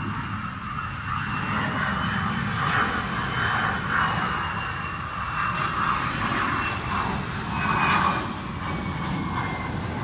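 Aircraft passing overhead: a steady low rumble with a thin high whine that drifts slowly downward in pitch near the end.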